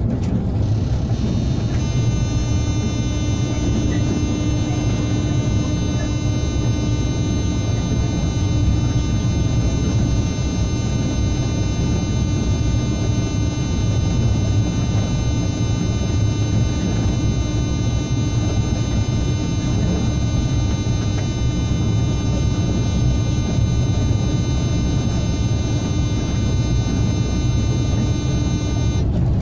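Cab of a class 163 electric locomotive at speed: a steady low rumble of the running gear and track, overlaid from about two seconds in by a high multi-tone electric whine from the thyristor-chopper traction equipment, which cuts off just before the end.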